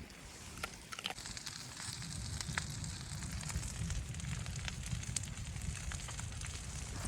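Wood fire crackling, with scattered sharp pops over a low rumble that grows stronger after the first second or so.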